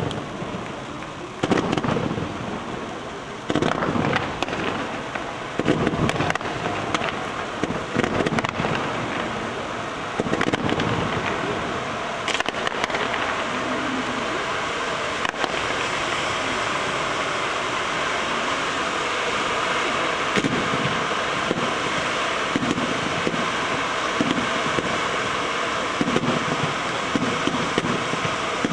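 Fireworks display: a string of sharp bangs through the first half, then a steady dense hiss with scattered pops as fountains burn on the firing barge while stars burst overhead.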